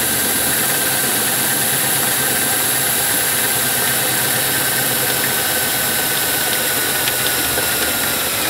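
Power drill running steadily as a larger bit reams out a small pilot hole through layered sheet-steel roof trim, the bit cutting metal with a steady high whine.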